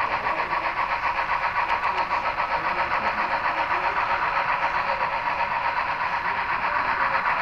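HO-scale model train running on the layout: a steady mechanical hum with a fast, even pulse.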